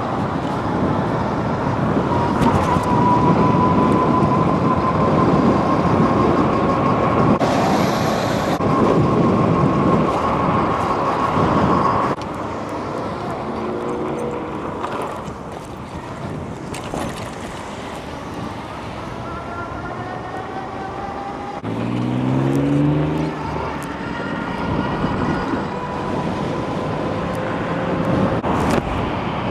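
Electric bike riding: wind rushing over the microphone with the motor's thin whine slowly rising in pitch. The rush drops off abruptly about twelve seconds in, and the ride continues more quietly, with a short rising hum near the end.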